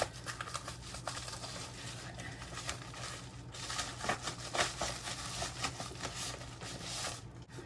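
A mailed package being opened by hand: rustling and crinkling of the packaging with small scrapes and clicks, in an irregular run.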